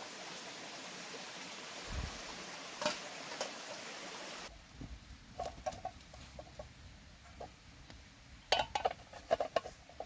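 Steady rush of running water with a few sharp clicks, cut off abruptly about four and a half seconds in. After it come irregular short clicks and taps, bunched together near the end.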